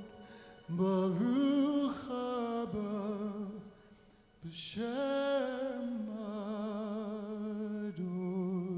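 Slow worship music: a solo voice sings long, held notes with vibrato, gliding between pitches, with a short pause about four seconds in.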